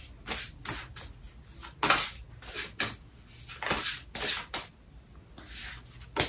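Tarot cards being shuffled by hand: a run of short, irregular shuffling strokes, about two or three a second.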